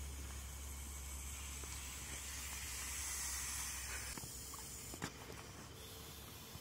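A man blowing breath into the valve of an inflatable camping pillow: a steady airy hiss that builds, then stops about four seconds in. A faint click follows about a second later.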